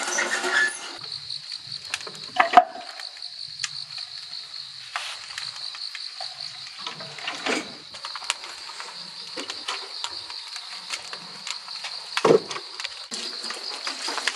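Crickets chirping in a steady, pulsing high trill. For the first second the wood fire crackles densely until the firebox door slides shut. A sharp knock comes about two and a half seconds in, and a dull thump near the end.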